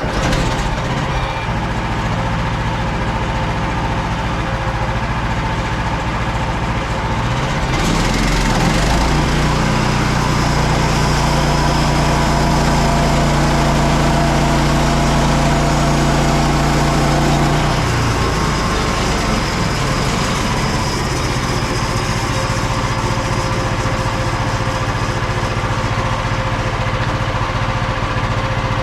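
Small petrol engine of a Frontier OS27 manual sawmill starting up after refuelling and then running steadily. From about eight seconds in, its note turns heavier and lower for about ten seconds, then settles back to a steady run.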